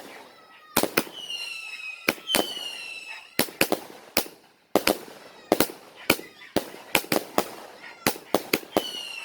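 A 100-shot firework cake firing: sharp bangs in quick, irregular succession, a few every second, some shots trailing a short whistle that falls slightly in pitch.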